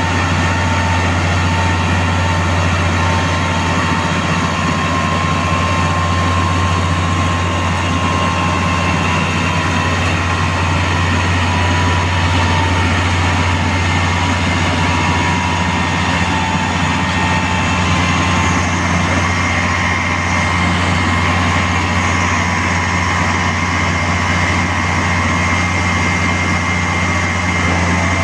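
A track-laying machine's heavy engine running steadily: a deep, even drone with a thin steady whine above it.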